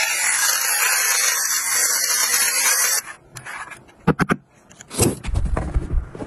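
Electric lint remover (fabric shaver) running over a knit sweater, a steady whirring hiss that cuts off about three seconds in. A few sharp clicks and soft thumps of handling follow.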